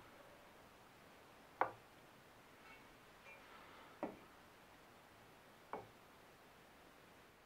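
Three short, light clicks a couple of seconds apart against near silence: a try square being set against the wooden fence of a jointer-plane jig and lifted away.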